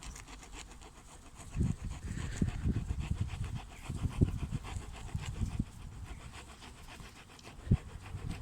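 Small folding saw blade of a Gerber MP600 Pro Scout multi-tool cutting PVC pipe in quick back-and-forth strokes, a rhythmic rasping with dull knocks from the pipe; the blade clogs and cuts poorly in plastic.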